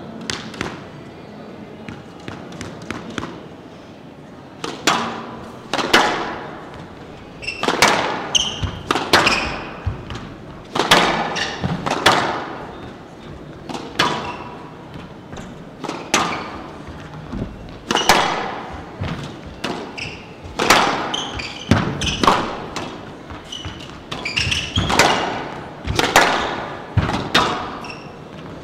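A squash rally on a glass court: the rubber ball smacked by rackets and thudding off the walls about once a second, each hit ringing in the hall, with shoes squeaking on the wooden floor now and then.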